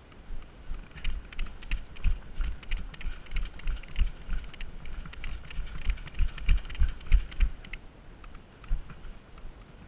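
Quick footsteps with crackling and crunching underfoot, stopping near the end.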